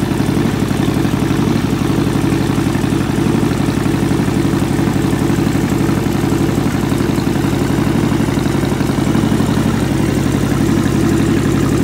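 Harley-Davidson Dyna's air-cooled V-twin idling steadily through a Vance & Hines aftermarket exhaust, a low, even engine note with no revs.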